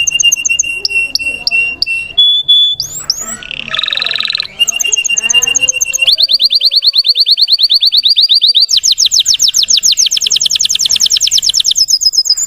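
Russian canary singing: a held whistled note and quick short phrases, then from about six seconds a long, rapid trill of repeated falling notes that jumps to a higher pitch about halfway through.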